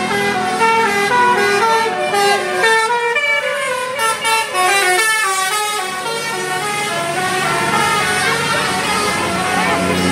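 Tour bus's Basuri-type telolet horn playing a fast tune of stepped notes. About six seconds in, the notes become less distinct over a low hum.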